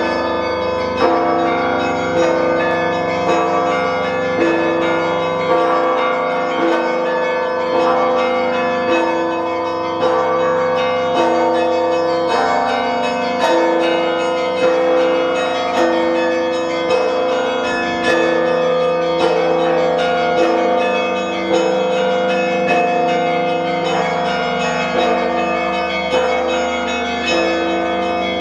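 Russian Orthodox church bells ringing a zvon: smaller bells struck in a fast, continuous pattern over a heavier bell that strikes about once a second, all ringing on between strokes.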